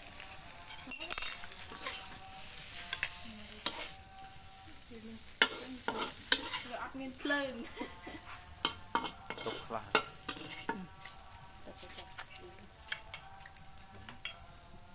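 A metal spoon stirring and scraping food in an iron wok, with many sharp scrapes and knocks of the spoon against the pan over a low frying sizzle.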